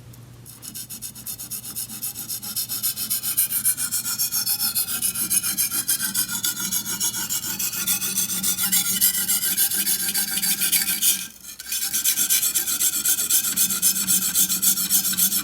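Steel chef's knife blade scraped in rapid strokes across a very coarse natural sharpening stone: a gritty rasp, with a short break about 11 seconds in. The coarse stone is cutting the steel quickly, raising a burr.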